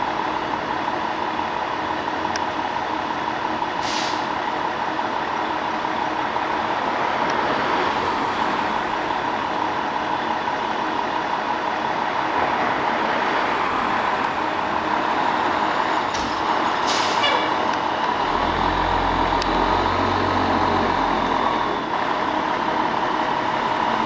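Fire department ladder truck's diesel engine idling steadily. Two short, sharp air hisses from the air brakes, one early and one past the middle. A low rumble swells for a few seconds near the end.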